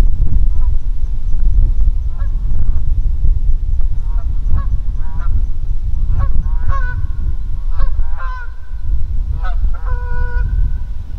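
A flock of geese honking: many short, overlapping calls, a few drawn out longer near the end. Underneath runs a steady low rumble of wind on the microphone.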